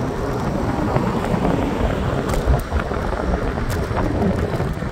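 Wind buffeting the microphone of a phone carried on a moving scooter: a heavy, steady rumble with a few clicks around the middle.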